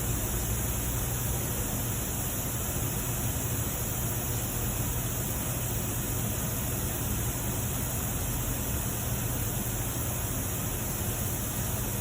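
Steady hiss with a low hum beneath it, unchanging throughout.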